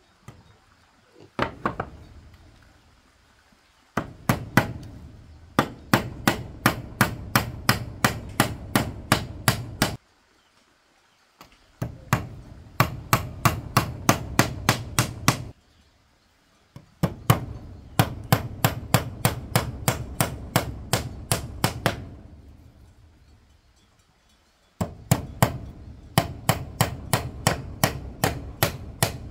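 Hammering in steady runs of about two to three blows a second, with short pauses between the runs.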